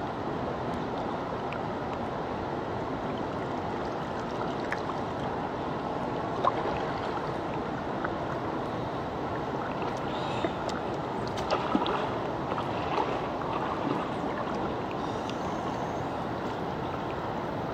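Shallow river water rushing steadily over rocks, with a few brief sharp sounds, the strongest about six and a half seconds in and a small cluster around eleven to thirteen seconds in.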